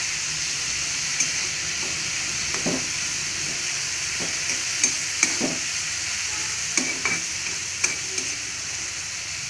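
Dried prawns frying in hot coconut oil in a kadai, a steady sizzle, while a steel spoon stirring them scrapes and clicks against the pan now and then.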